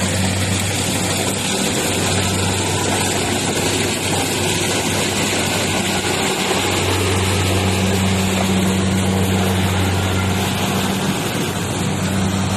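Rice harvesting machine's engine running steadily under load, a constant low hum with mechanical clatter over it.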